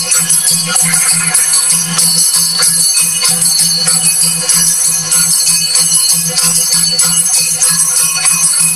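Yakshagana ensemble music accompanying a dance: drums beating a fast, even rhythm under dense metallic jingling from hand cymbals and the dancers' ankle bells.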